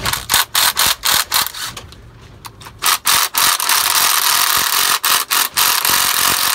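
Cordless impact wrench running in short trigger pulls, then in a longer run from about three seconds in with a few brief breaks, as it loosens the rocker-rack bolts on a Volvo D13 diesel engine.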